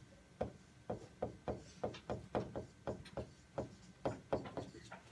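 Stylus tapping and clicking against a touchscreen display while writing by hand: a quick, irregular series of short light taps, about three a second.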